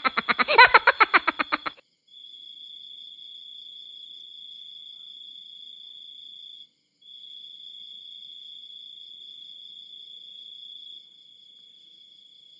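A loud rapid pulsing sound, about ten pulses a second, stops just under two seconds in. Then a cricket trills on one steady high note, with a short break near the middle, growing fainter about eleven seconds in.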